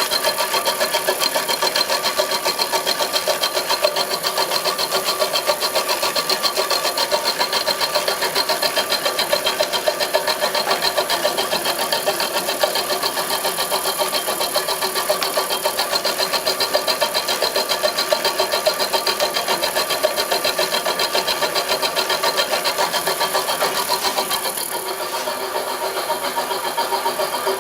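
Homemade milling machine running, a steady mechanical drone with a fast rhythmic chatter that eases a little about 24 seconds in.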